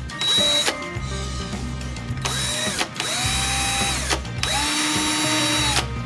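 Worx cordless drill/driver running off a Litheli 20V battery through a modified battery adapter, its motor spinning up and winding down in four short trigger pulls. The last two runs are the longest. The drill is running, which shows the adapter is passing power from the battery to the drill.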